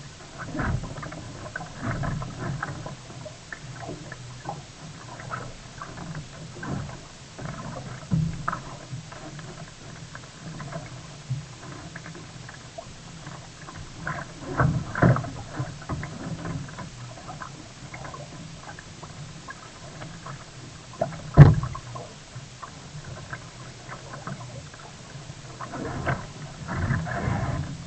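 Sea kayak on the water: irregular paddle splashes and water sloshing against the hull, with one sharp knock about three-quarters of the way through.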